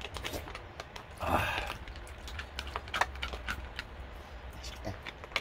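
Metal spoon clicking and scraping inside a snow crab's top shell as the crab innards are scooped out and eaten, with many small irregular clicks and one breathy sound about a second in.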